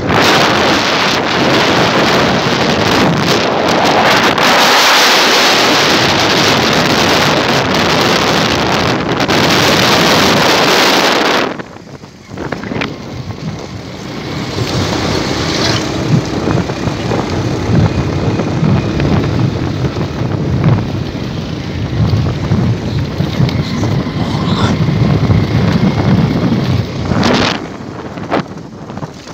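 Wind buffeting the microphone of a moving motorcycle, loud for the first eleven seconds or so, then dropping off suddenly. After that the motorcycle is heard running over a rough, potholed road, with wind gusts coming and going.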